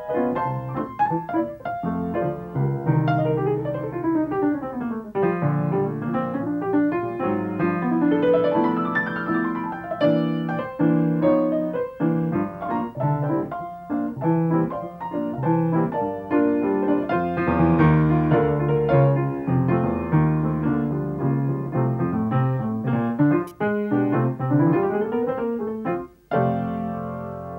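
Solo piano music with quick runs of notes up and down the keyboard and bass notes underneath, breaking off briefly near the end.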